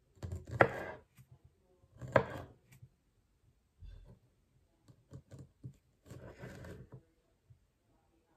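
Kitchen knife cutting grapes in half on a wooden chopping board. The blade knocks sharply on the board twice, about half a second in and about two seconds in, followed by fainter taps and a soft scraping.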